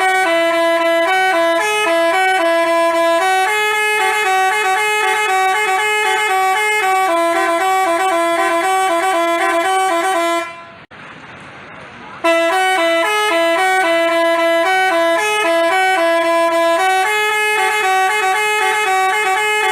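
Telolet basuri musical bus horn playing a tune in a series of stepping, held horn notes. The tune breaks off about halfway through for a second and a half, then starts again.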